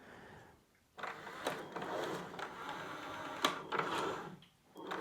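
Bambu Lab AMS 2 Pro feeding filament through slot 1, its feed motor and gears running, starting about a second in with a few sharp clicks and a short pause near the end. It sounds a lot better than it did, now that the faulty internal hub has been replaced.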